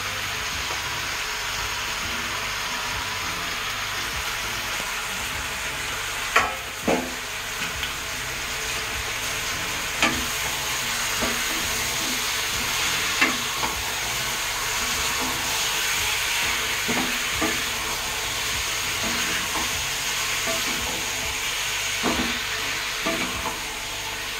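Raw chicken pieces and onions sizzling steadily in hot oil in a frying pan as they are stirred with a spatula. A few sharp knocks of the utensil against the pan stand out, the loudest about six and seven seconds in, with more near ten and thirteen seconds.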